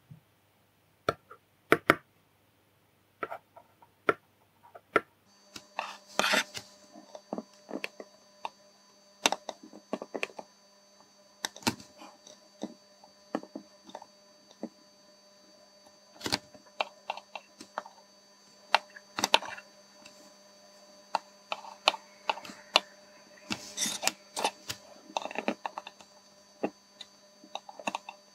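Irregular small, sharp clicks and taps of metal tweezers handling tiny surface-mount LEDs, tapping against a circuit board and the workbench while soldering. A faint steady hum with a thin high whine comes in about five seconds in.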